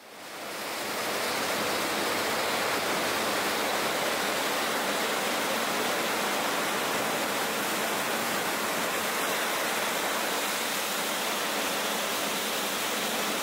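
Steady rush of white water churning in the wake astern of a powerboat running at speed. It fades in over the first second, then holds even.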